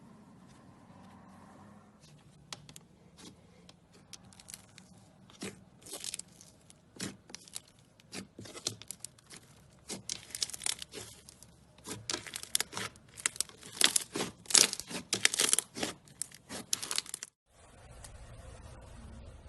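Slime being squeezed and worked by hand, giving a string of sharp crackles and pops. They grow denser and louder, then stop abruptly near the end, where a steady low hiss takes over.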